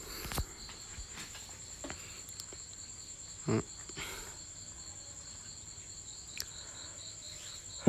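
Crickets chirping steadily: a high even trill over a lower, evenly pulsing chirp. A brief low sound comes about three and a half seconds in.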